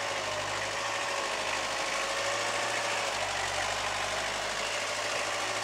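Mini tractor's engine running steadily as it pulls a trailer loaded with bricks.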